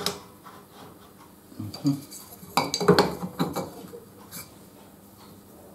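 Metal clinks and knocks as a grinding wheel and its fittings are handled and fitted onto the spindle of a saw blade sharpener, with a close cluster of them about three seconds in. The machine's motor is not running.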